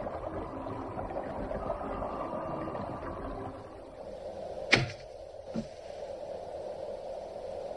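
Steady low hiss, broken about two-thirds of the way in by a sharp click and then a softer knock: the latch and wooden door of a rooftop hut being opened.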